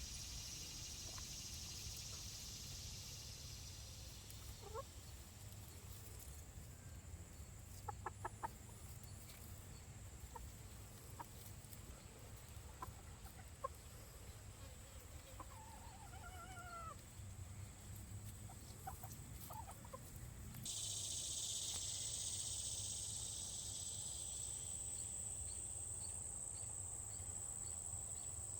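Insects trilling steadily in a high pitch, joined about two-thirds of the way through by a louder high buzzing chorus that starts suddenly. Scattered faint short calls and a few quick clicks come in between.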